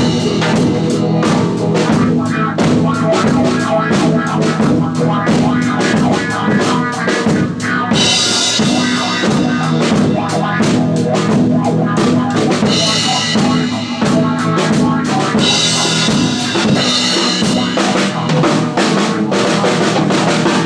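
A band playing an instrumental passage of a soul song, led by a drum kit with a steady beat of kick and snare over sustained bass and chord notes. Cymbal crashes splash over it a few times midway.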